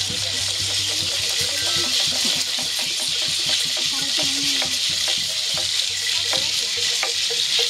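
Many gourd maracas shaken together in a dense, steady rattle that keeps going without a break.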